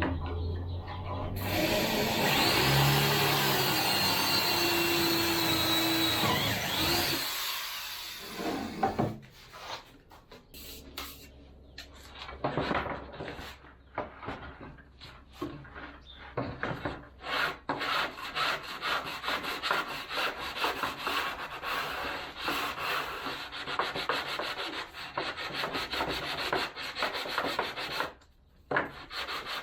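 Wood being sanded, a long run of uneven rubbing strokes. Before it, a power tool runs loudly and steadily for about five seconds near the start.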